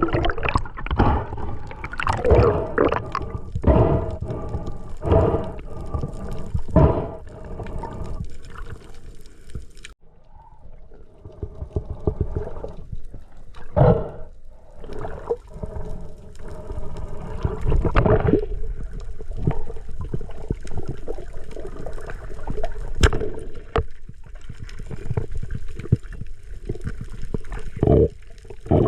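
Water sloshing and gurgling around the camera, with bubbles, in irregular surges and a quieter stretch about ten seconds in.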